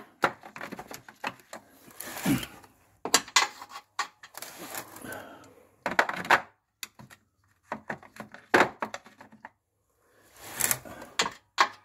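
Hand tools clicking and clinking: a socket ratchet working and metal sockets being handled, in irregular bursts of clicks with short pauses.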